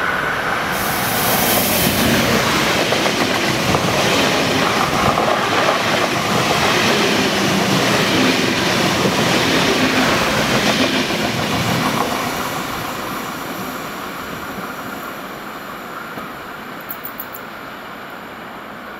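ICE T high-speed electric train passing at speed: a loud, steady rush of wheels on rail and air for about twelve seconds, then fading away as the train recedes.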